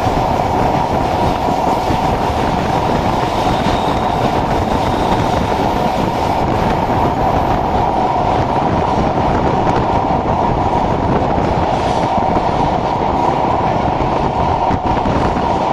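Passenger train running at speed, heard from inside a carriage by an open window. The wheels on the rails make a steady, unbroken rumble with a constant high hum above it.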